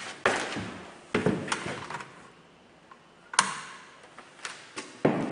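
Irregular sharp knocks and thumps, about seven in all, each ringing briefly in a bare, empty room; the loudest comes about three and a half seconds in.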